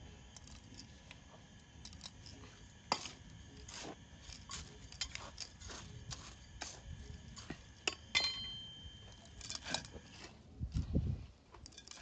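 Gritty potting mix of soil, granular soil and ceramsite being stirred and scooped by gloved hands in metal and enamel basins. Scattered scrapes and clicks of grit and scoop against the metal, with a few louder clinks now and then.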